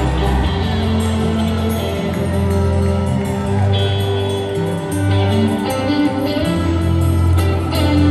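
Live country-rock band playing an instrumental break with no singing: acoustic guitar over steady bass notes that change every second or two, with keyboard and drums.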